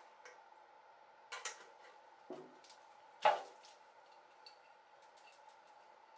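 A few clinks and knocks of small hard objects being handled and set down, the loudest a little past three seconds in, then faint ticks, over a steady room hum.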